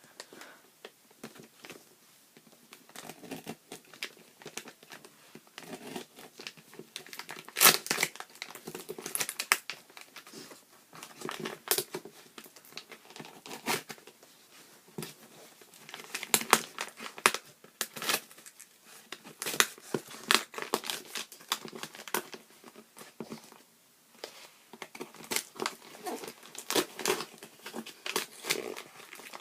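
A parcel being unwrapped by hand: packaging crinkling and rustling in irregular handfuls, with some tearing, and a short lull about two-thirds of the way through.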